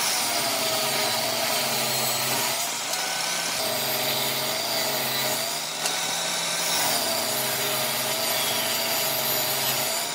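Table saw running and ripping thin wooden strips along the fence. The motor's whine sags and recovers several times as the wood feeds through the blade under load.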